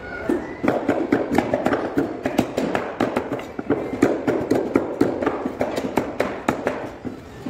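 Cleavers chopping chicken on wooden chopping blocks: sharp, irregular knocks, several a second, some overlapping as if from more than one block.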